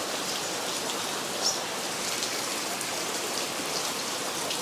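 Steady rain falling on a tiled roof and streaming off the eaves: an even hiss with a few scattered drips.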